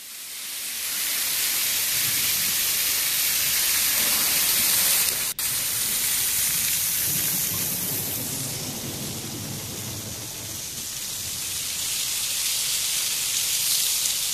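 Heavy rain pouring down, a steady hiss with a low rumble under it through the middle. It fades in at the start and cuts out for a moment about five seconds in.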